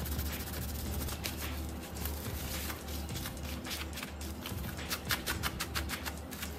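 A tissue rubbed and crinkled over a cracked iPad screen: irregular scratchy rubbing and light clicks, closer together near the end, over a steady low hum.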